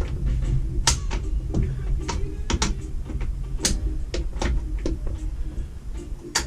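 Wind rumbling on the microphone, with scattered sharp clicks and knocks of metal being handled.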